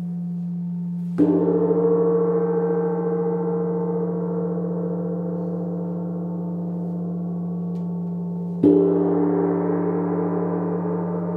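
A gong struck twice with a mallet, about seven seconds apart, each stroke ringing out and slowly fading over a steady low drone.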